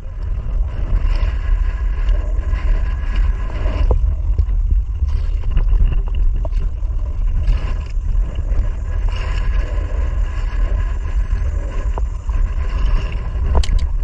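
Small outrigger fishing boat's engine running steadily under way, with a constant low rumble and a steady hum, mixed with wind and water rushing past the hull.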